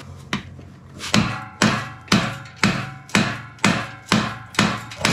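Hammer blows on a rusted-in exhaust pipe under a 2014 Ford Taurus SHO, about two a second, the metal pipe ringing after each hit. The pipe is seized with corrosion and is being beaten loose.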